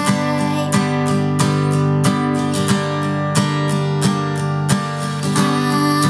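Acoustic guitar strummed in a steady rhythm, an instrumental passage with no singing, the stronger strokes landing about every two-thirds of a second.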